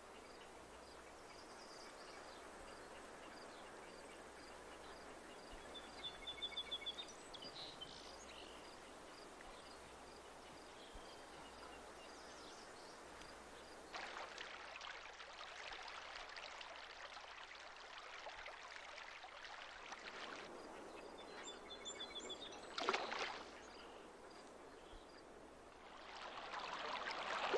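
Faint running and lapping water, with a quick run of small high bird chirps about six seconds in and again a little after twenty seconds. The water sound grows louder about halfway through and again near the end, and a brief, sharp, louder burst comes just after the second chirps.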